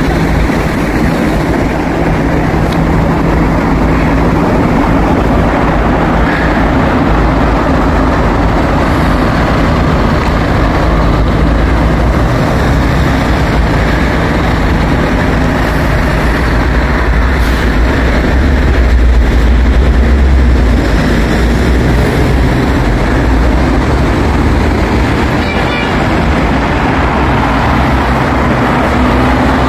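Subway train running: a steady, loud rumble with a low hum, swelling briefly about two-thirds through.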